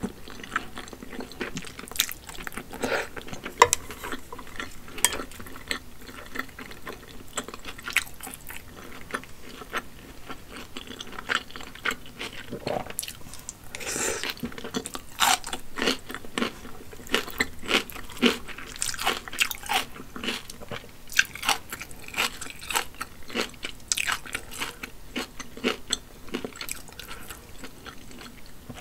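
Close-miked eating sounds: chewing and slurping wide, sauced hand-pulled noodles, with many sharp, irregular wet mouth clicks and crunchy bites.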